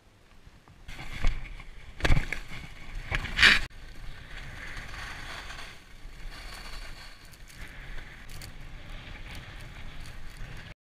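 Skis scraping and sliding over tracked, packed snow: a few loud scrapes of the edges in the first few seconds, then a steady hiss of skis gliding that cuts off suddenly near the end.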